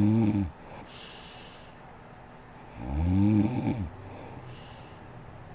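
A sleeping woman snoring: a low, buzzing snore that ends about half a second in and another loud one about three seconds in lasting about a second, with breathy air rushing between them.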